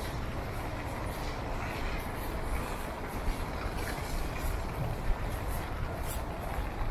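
Steady low rumble of city traffic on wet streets, with a few light ticks in the second half.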